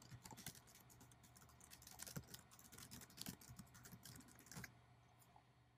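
Faint computer keyboard typing: a quick run of keystrokes that stops shortly before the end.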